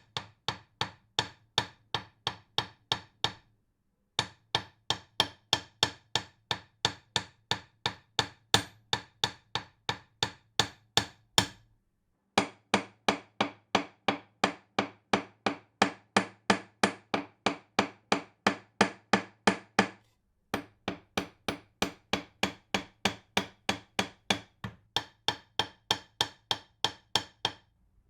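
Hammer striking repeatedly in a steady rhythm, about three blows a second, each with a brief ringing tone. The blows come in four runs, broken by short pauses.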